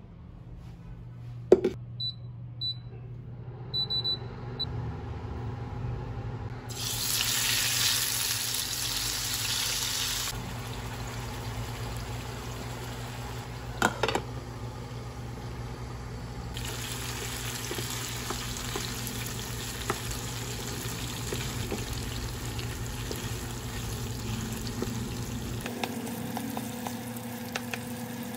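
Cooking at an induction cooktop. A few short high beeps from the cooktop's touch controls, then a loud hiss for a few seconds as something goes into the hot pan, and a single clank of the pan or lid near halfway. After that, meat and onions sizzle steadily as they fry, over a low steady hum from the cooktop.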